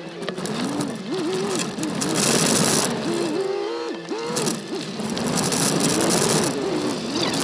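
Turbocharged Subaru Forester engine running over a rough dirt trail, its pitch rising and falling constantly with the throttle, under a rattling buzz from the vibrating roof-mounted camera mount. The rattle and hiss swell about two seconds in and again near the end.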